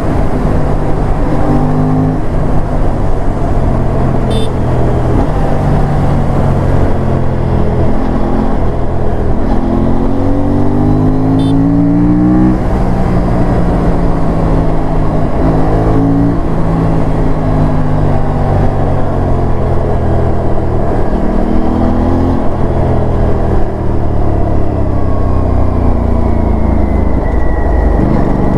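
Aprilia sport bike's parallel-twin engine under hard riding, revs climbing and dropping several times as it pulls through the gears, over heavy rushing noise. Two short sharp ticks stand out, one a few seconds in and one near the middle.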